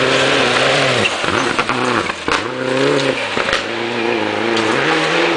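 Rally car engine revving hard on a gravel hillclimb stage, its pitch climbing and dropping again and again as it shifts and lifts off the throttle. A couple of sharp cracks sound about two and three and a half seconds in.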